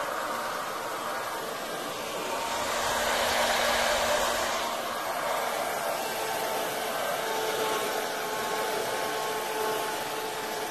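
Handheld electric hot-air dryer blowing steadily on wet alcohol ink, a rushing sound with a faint motor hum. It swells louder between about two and five seconds in.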